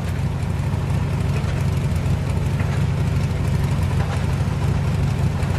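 A convertible sports car's engine idling steadily.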